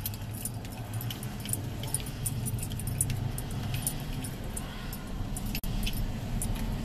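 Steady low rumble inside a car, with frequent small sharp metallic jingles and clicks as a large dog chews and shifts about, its collar jingling.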